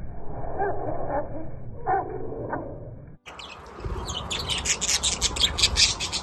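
Slowed-down slow-motion audio of budgerigars, their calls pitched down into low, drawn-out groans. About three seconds in it cuts abruptly to a budgerigar flock at normal speed, chattering with rapid high chirps.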